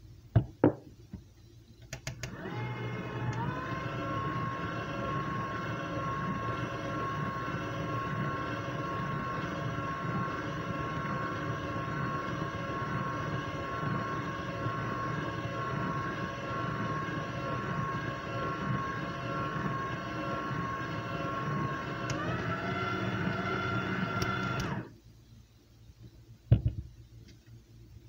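KitchenAid stand mixer running as its whip mixes flour into pound cake batter: the motor starts about two seconds in with a rising whine and settles into a steady hum. Near the end its pitch steps up once, then it stops suddenly. A couple of sharp knocks come just before it starts.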